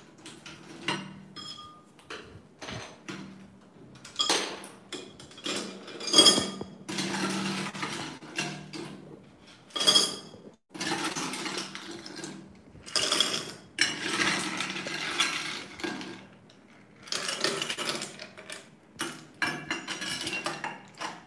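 Ice cubes clinking and clattering as a stainless steel ice scoop digs into a glass bowl of ice and tips them into a glass jar: an irregular run of sharp clinks and scrapes, the loudest clatters about six and ten seconds in.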